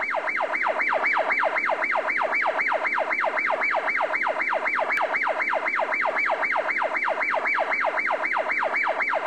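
Police car siren in yelp mode: a fast repeating wail that sweeps down in pitch about four times a second, loud and unbroken.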